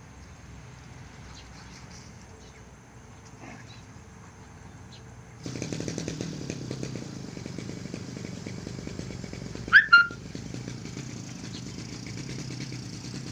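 An engine running steadily, cutting in suddenly about five seconds in. Two short, loud high-pitched cries stand out above it about two-thirds of the way through.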